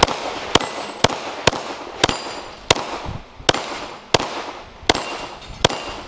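9mm Glock 17 pistol fired in a string of about ten shots at steel plates, roughly one every half second to three-quarters of a second, with a faint high ring after several shots.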